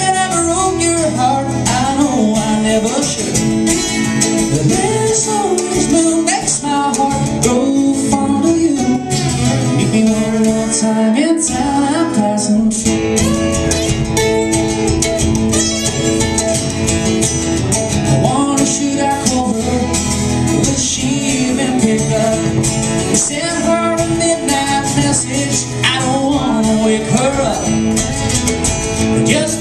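Live song played on two acoustic guitars, with a man's voice singing over them in places.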